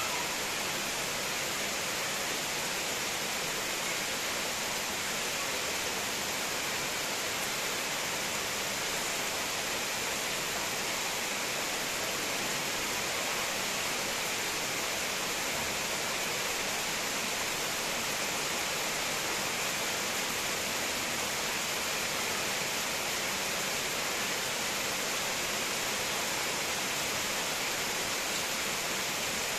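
Heavy rain falling steadily on palm and broadleaf tree foliage, an even hiss that does not change.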